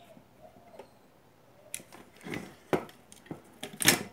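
Knocks and clatter of a car amplifier's circuit board and metal heatsink chassis being handled and shifted on a wooden bench. There are several sharp knocks from a little under two seconds in, the loudest cluster near the end. A dove coos faintly at the start.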